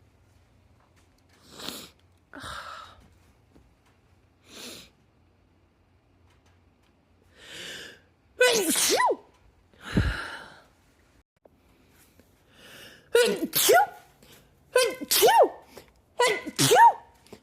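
A woman's sneezing fit. A few short, sharp inhales lead into a loud voiced sneeze about halfway through. A run of sneezes in quick succession follows near the end.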